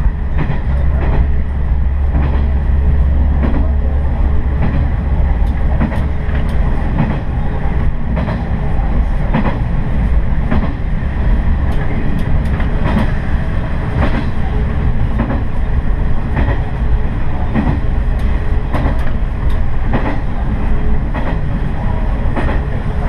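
Diesel railcar running along the line, heard from on board: a steady engine and running rumble with the wheels clicking irregularly over rail joints.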